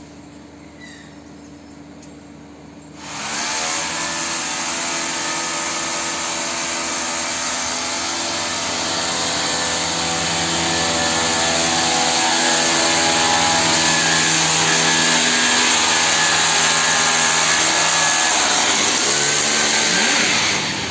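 Swimming-pool heat pump's fan and compressor starting up about three seconds in, rising in pitch, then running loudly and steadily with a strong rush of air and a whine, winding down just before the end.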